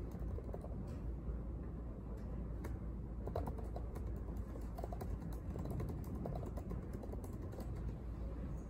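Typing on a laptop keyboard: irregular runs of quick, light key clicks, busiest in the middle, over a steady low room hum.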